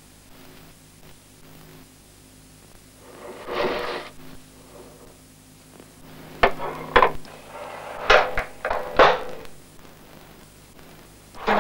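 Plates being set into a dishwasher rack, clattering in a handful of sharp knocks in the second half, after a brief rush of noise about three and a half seconds in.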